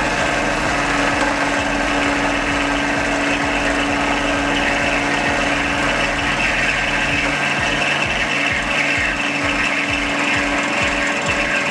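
Benchtop mill-drill running steadily with a constant motor and gear hum, its spindle cutting into a workpiece clamped in the vise with a rasping sound. In the second half a low pulsing comes in, about three times a second.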